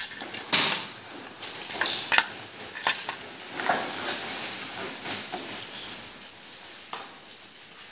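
Plastic Lego bricks clicking and clattering as a hand lifts and handles a Lego piece on a hard floor. There are several sharp clicks in the first three seconds, then quieter handling noise.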